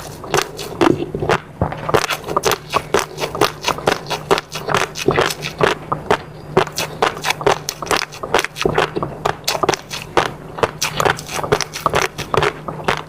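Close-miked chewing and mouth sounds of eating: a steady run of wet clicks and smacks, several a second.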